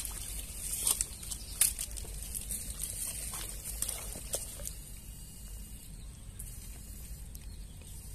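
Water splashing lightly and sticks and dead leaves rustling as a hand reaches into a shallow ditch and grabs a tilapia, with a few sharp crackles in the first half.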